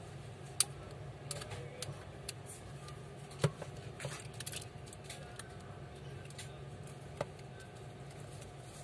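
Light clicks and taps of hands working on an opened Vivo smartphone on a workbench: parts and flex connectors being handled. There are three sharper clicks, about half a second, three and a half seconds and seven seconds in, over a steady low hum.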